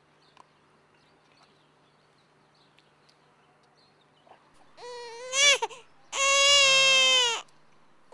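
A faint low hum, then about five seconds in a short high cry that bends up and down, followed by a longer, steady high-pitched wail of about a second and a half.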